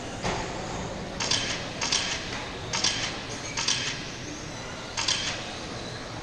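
Electric RC F1 race cars speeding around the track, making a short hissing whoosh each time one passes, about six times at uneven intervals over a steady low background hum.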